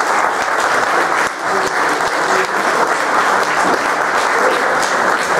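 A roomful of people applauding, many hands clapping at a steady level.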